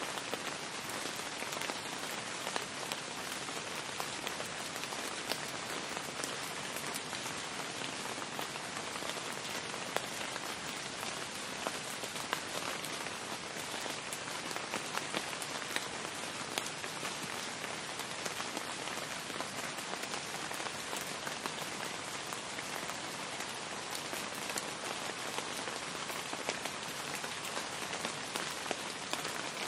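Steady rain falling, with many separate drop hits ticking through it.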